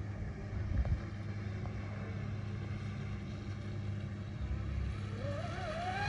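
Electric whine of a TFL Zonda twin-motor RC catamaran's motors, faint over a steady low rumble, then rising in pitch and growing louder near the end as the boat speeds up.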